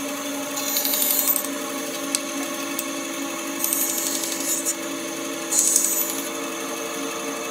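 Bandsaw running with a steady hum while its blade cuts into a wooden board in three short bursts of hissing sawing, about a second in, around four seconds and near six seconds. These are short in-and-out cuts taking a tight curve away in sections.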